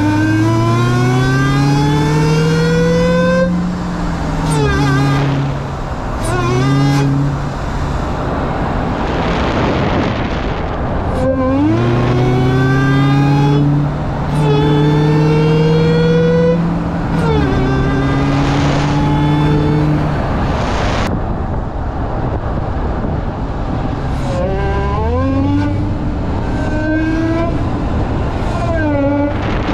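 Dodge Challenger Hellcat's supercharged 6.2-litre HEMI V8 accelerating hard through the gears, running with a new Corsa carbon-fibre air intake that makes it way louder. Its pitch climbs for a few seconds and drops at each upshift, several times over, with short easings-off between the pulls.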